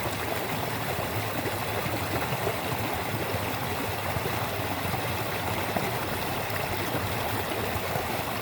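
Steady rush of moving water, splashing and gurgling without a break.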